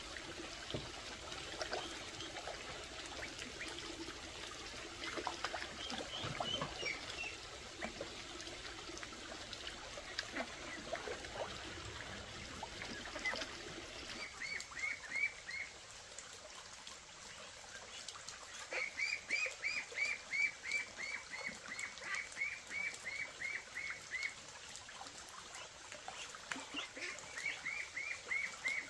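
A flock of ducks calling and shuffling. From about halfway, runs of high, evenly repeated chirps come in, about three a second.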